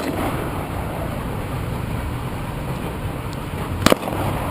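A single gunshot near the end, a sharp crack over a steady low rumble of background noise.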